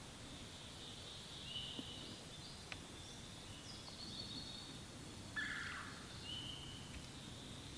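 Wild turkey gobbler gobbling once, about five seconds in, loud and brief, with songbirds singing steadily throughout.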